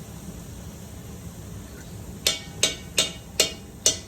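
A metal spoon rapped sharply against the rim of the Dutch oven five times in quick succession, about two and a half knocks a second, starting a little over halfway through: knocking sticky tomato paste off the spoon into the pot.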